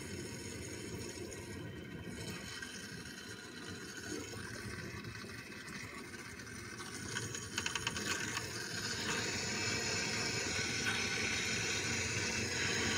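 Water running from a just-opened valve on newly plumbed PEX lines. About seven seconds in it sputters as air is bled out of the line, then settles into a louder, steady rush.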